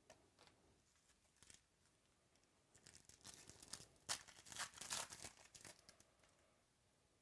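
A trading card pack's wrapper being torn open and crinkled: a few faint ticks first, then about three seconds of tearing and crinkling.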